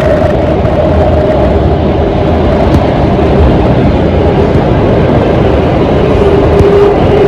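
Inside an Alstom Metropolis C751A metro car running at speed: a loud, steady rumble of wheels on rail. A faint steady whine from the Alstom ONIX IGBT-VVVF traction equipment fades out in the first second, and a lower steady whine comes in near the end.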